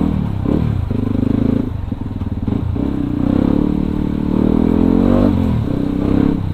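Yamaha WR155R's single-cylinder engine through an aftermarket racing exhaust, running at low speed in stop-and-go traffic with the throttle opened and closed. The revs climb steadily to a peak about five seconds in, then drop away.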